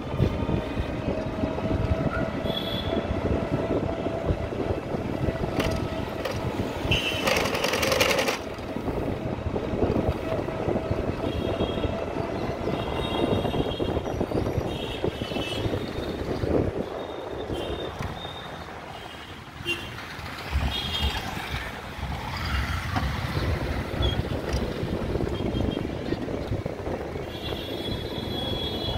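Steady rumble of road and wind noise from riding along a city street in traffic, with a brief louder rush about seven seconds in and several short horn beeps from passing vehicles in the second half.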